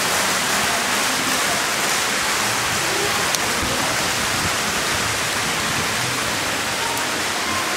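Several fountain jets splashing steadily into a shallow pool, an unbroken rushing of water.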